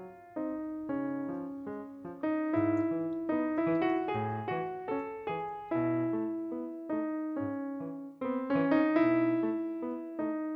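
Background piano music: a gentle melody of single notes over bass notes.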